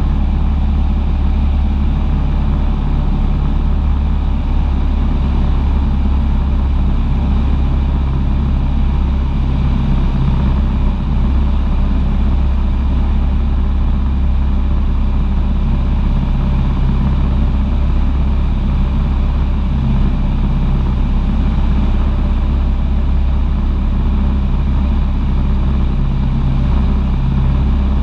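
Cessna 150's four-cylinder Continental O-200 engine and propeller running steadily in flight, a loud, even drone.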